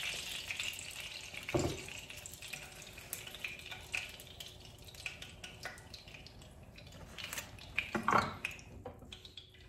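Hot oil in a frying pan sizzling and crackling with scattered small pops, dying away, with two dull knocks, one about a second and a half in and one near the end.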